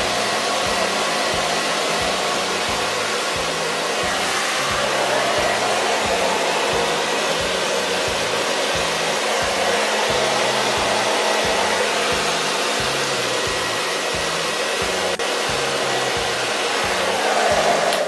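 Philips DryCare Pro hair dryer with a 2200-watt AC motor running steadily, a rush of blown air with a faint whine, while it is worked over long straight hair.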